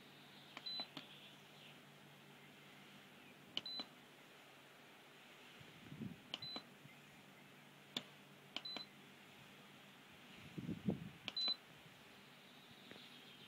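Control panel of a PISA electric patio heater beeping as its buttons are pressed: five short high beeps a few seconds apart, each just after the click of a button. A couple of dull bumps come near the middle and near the end.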